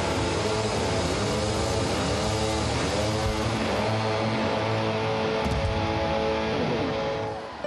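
Rock band playing live at full volume: electric guitar and drums, with notes that swoop up and down in pitch. The sound dips and changes just before the end.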